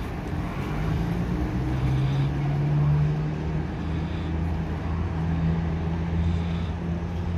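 Engine of a vintage single-deck bus running as it drives slowly past, its low note rising a little about two seconds in and then holding steady.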